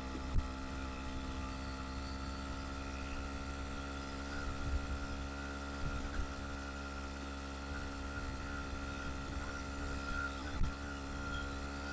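Motorized bicycle's small engine running steadily under light throttle while pulling up a hill, a constant hum with a high steady whine. A couple of short knocks, about half a second in and near the end.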